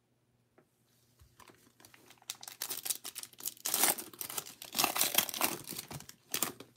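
Plastic wrapper of a 2022 Bowman baseball card pack being torn open and crinkled by gloved hands. It starts soft about a second in and is loudest in the middle.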